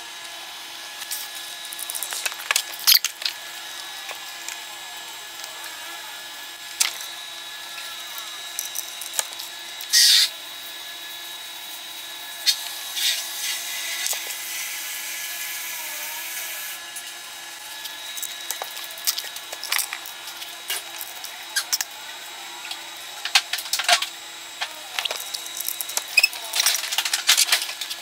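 Irregular plastic clicks and snaps of mechanical keyboard switches and keycaps being pressed into place, with a few longer scraping bursts, over a faint steady hum.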